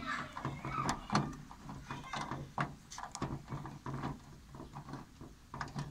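A small 8 mm socket turning out a tiny bolt at the front corner of a car's sunroof panel: irregular metallic clicks and short scrapes as the socket works on the bolt and bracket.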